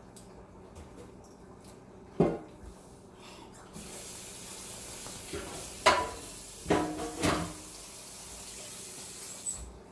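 Kitchen tap turned on and running for about six seconds, then shut off, with a sharp knock before it and several clanks of pots or dishes, some ringing, while the water runs.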